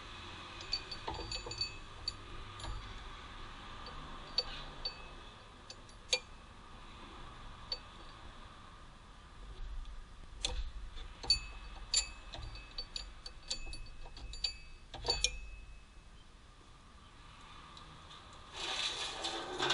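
Scattered light clicks and taps with some rubbing, a hand tool working against metal engine parts around a car's crankshaft pulley and oil pan. A steady hissing rush starts near the end.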